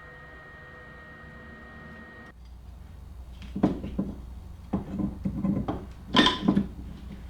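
A steady hum with a few tones that cuts off suddenly about two seconds in, then a run of irregular metal clanks and knocks as parts and tools are handled at a vise. The loudest clank comes near the end.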